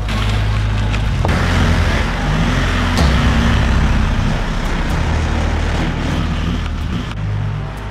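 Turbodiesel engine of a race-tuned VW Golf V TDI running and revving, its pitch rising and falling, with music underneath.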